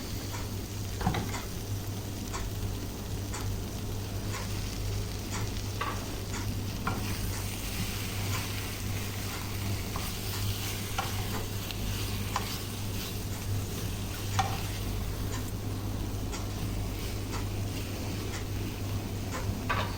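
Boiled pigeons frying in a pan with onions, sizzling steadily while a spoon stirs and scrapes, giving scattered short clicks against the pan.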